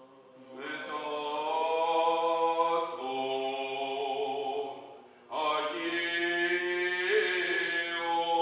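Byzantine liturgical chant from a Greek Orthodox funeral service: a single voice chanting in long, drawn-out notes. It sings two phrases, with a short break for breath about five seconds in.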